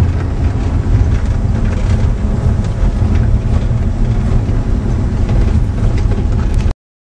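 Vehicle cabin noise on a rough dirt road: a steady low rumble with continuous rattling and clicking from the vehicle's body and loose parts. It cuts off abruptly to silence about a second before the end.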